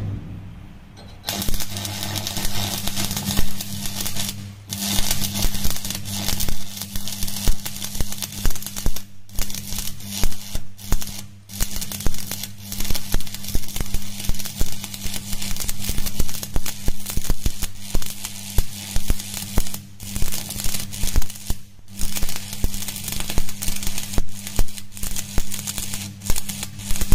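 Shielded metal arc (stick) welding arc crackling and sputtering as the electrode lays a single run to fill a V-groove butt joint in steel plate, over a steady low hum. The arc noise drops out briefly a few times.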